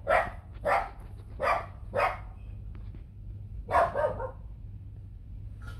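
A dog barking: four sharp barks about two-thirds of a second apart, then one more after a pause of nearly two seconds.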